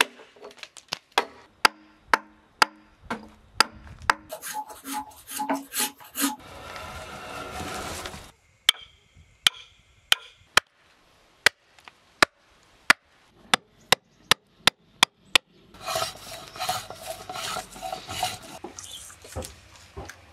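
Hand woodworking on timber: a run of sharp single strikes of tools on wood, at times about one a second, broken by stretches of rasping, scraping strokes.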